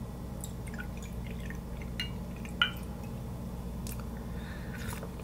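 A few small, scattered clicks and clinks of a glass bottle and drinking glass being handled, two of them ringing briefly, over a steady low room hum.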